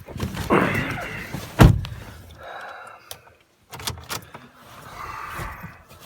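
Car door handled and shut, with one loud thump about a second and a half in, surrounded by rustling and a few clicks.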